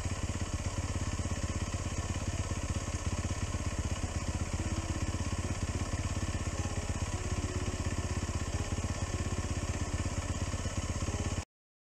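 Polaris RZR 1000 XP side-by-side's twin-cylinder engine idling steadily, heard from inside the cab, with a fast even pulse. The sound cuts off abruptly near the end.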